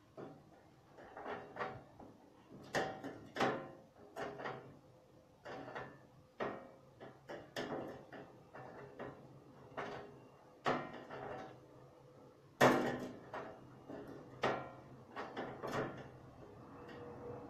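Irregular knocks and clatters of objects being handled, about one a second, some ringing briefly; the sharpest bang comes about two-thirds of the way through.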